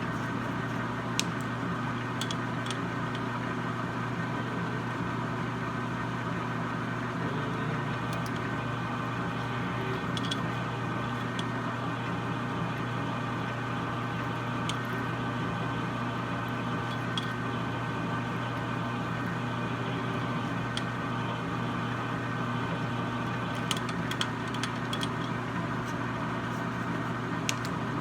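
Metal lathe running steadily at a slow 70 RPM spindle speed while a pilot hole is drilled. It gives an even mechanical hum with scattered small clicks.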